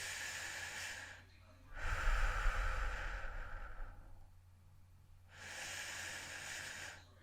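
A person breathing slowly and heavily, close to the microphone. There are three long breaths of about two seconds each with short pauses between. The middle breath is louder and carries a low rumble.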